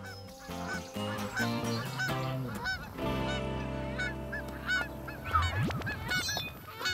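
Domestic geese honking over and over in short nasal calls, over background music, with a rising swoosh effect about five seconds in.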